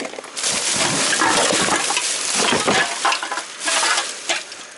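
Rustling and clattering as hands dig through a box of discarded household items, dying down near the end.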